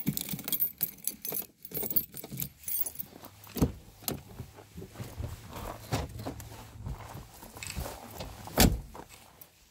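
Handling noises: jangling, clicks and light knocks, with one heavier thump near the end, over a faint low steady hum.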